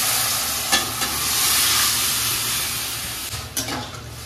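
Boiled chana dal hitting hot spiced oil in a metal kadai, sizzling loudly with a hiss that slowly dies down. A metal spatula clinks against the pan about a second in and scrapes it again near the end as the dal is stirred.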